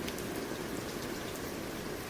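Steady rain with many small drops ticking against a surface over an even hiss.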